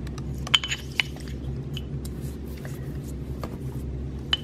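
Pastry brush dabbing egg wash onto a puff-pastry lid: a few soft, wet, sticky clicks, two about half a second and a second in and two more near the end, over a steady low hum.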